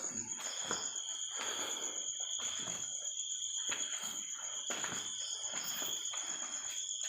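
Crickets trilling steadily, with regular footsteps about once a second.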